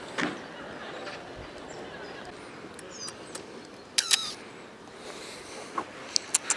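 Steady outdoor background hiss with a few brief chirps and sharp clicks; the loudest is a pair of clicks about four seconds in, and a few smaller clicks come near the end.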